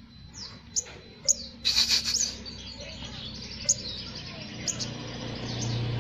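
Sunbird singing: scattered sharp, high, downward-sliding chirps with a quick burst of rapid notes about two seconds in, over a low steady hum that grows toward the end.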